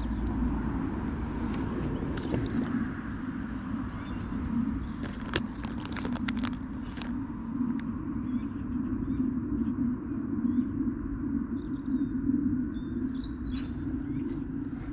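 Outdoor ambience: a steady low rumble with short, high bird chirps repeating every second or two, and a few sharp clicks about five to seven seconds in.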